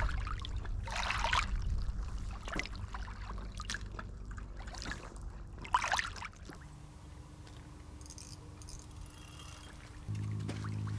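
Small waves washing onto a pebble shore in short splashes over a low rumble. Near the end a steady low hum sets in.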